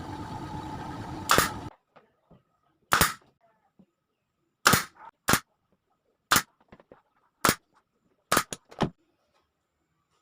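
A short stretch of noise ending in a loud click, then about seven sharp, separate knocks at uneven intervals roughly a second apart.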